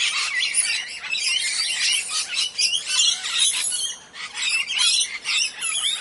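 Parrots chattering: many short, high-pitched chirps and squawks overlapping one another.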